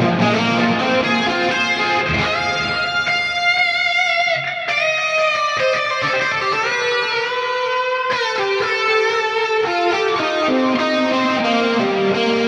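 Electric guitar played through a high-gain lead preset on an Axe-Fx III amp modeler: a melodic lead line of sustained notes with pitch bends and vibrato.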